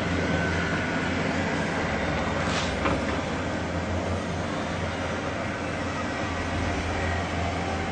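A steady low droning hum over a noisy rumble, with a brief rushing sound about two and a half seconds in; an unexplained 'sky sound' of the kind reported worldwide.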